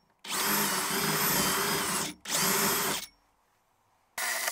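Cordless drill with a 1/4-inch bit drilling out a plastic rivet that holds a factory door speaker. It runs for about two seconds, stops briefly, runs again for just under a second, falls quiet, then starts again briefly near the end, each run whining up to speed.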